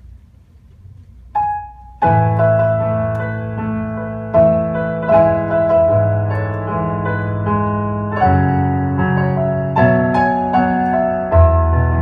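Piano intro played on a Roland Juno keyboard: one short note about a second and a half in, then from two seconds in a run of sustained piano chords, each new chord struck roughly every second.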